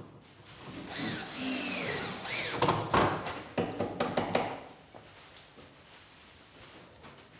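Cordless drill-driver driving screws into the wooden frame of a roof window. The motor whine rises and falls in pitch between about one and four and a half seconds in, and is quieter after that.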